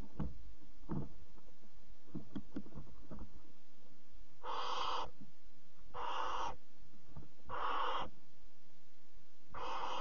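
Barn owl owlets giving their hissing, snore-like food-begging calls: four calls of about half a second each, roughly every second and a half, starting about halfway in. Before them come light scratches and knocks from movement on the nest-box floor.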